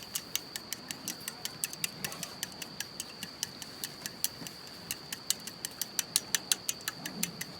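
Rapid, fairly even clicking, about five or six sharp ticks a second, over a faint steady high-pitched whine.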